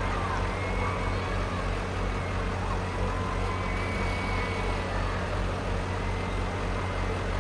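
Monster truck engine idling with a steady, low rumble.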